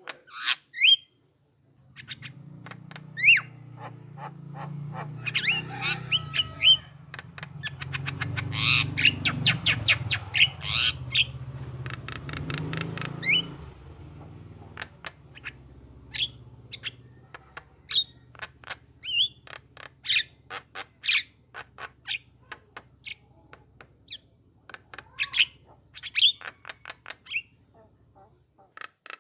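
Javan mynas (jalak kebo) calling: a rapid series of sharp chirps, clicks and short whistles, densest and loudest in the first half, over a low hum that fades out about halfway through.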